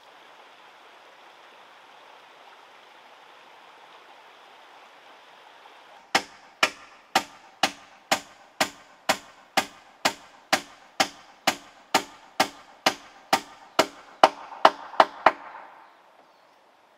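A series of sharp knocks on bamboo, about two a second, as the slatted bamboo floor of a chicken shelter is struck piece by piece; the last few come quicker and louder before stopping. Before the knocking there is only a steady background hiss.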